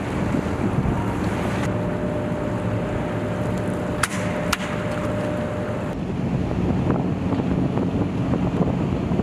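Small military boat engines running, with wind buffeting the microphone and the wash of water. Two sharp clicks about four seconds in.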